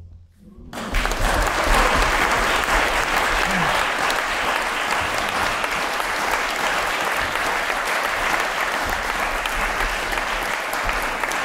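Audience applause: after a brief hush it breaks out less than a second in and keeps up as steady, dense clapping.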